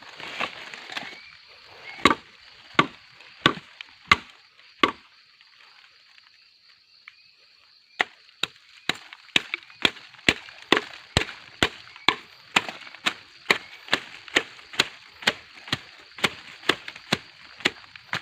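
Blade chopping into gombong bamboo: five blows about two-thirds of a second apart, a pause of about three seconds, then a faster, steady run of blows about two a second.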